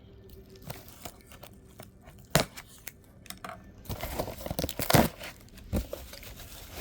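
Paper being torn and crinkled by hand as a gift is unwrapped: scattered rustles and a sharp snap about two seconds in, then a denser stretch of tearing and crumpling about four to six seconds in.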